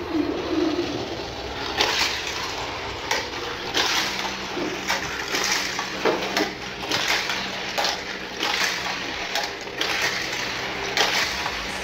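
Die-cast metal toy cars clattering along a plastic toy race track in a run of short rattles, with a faint steady hum from about four seconds in.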